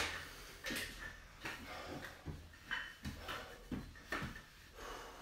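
A sharp clack as a pair of dumbbells is lifted off its stand, followed by a few soft knocks and shuffles as they are carried and settled.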